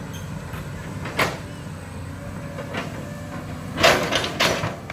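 Excavator engine running steadily, with a sharp knock about a second in and a quick run of louder knocks near the end.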